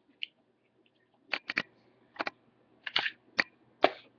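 About ten sharp clicks and knocks, scattered unevenly, from a Colt Sistema .45 pistol being handled and turned over in the hands.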